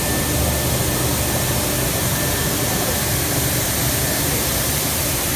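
Steady running noise of an LDPE film recycling pelletizing line: an even machine hum with hiss and a faint high whine.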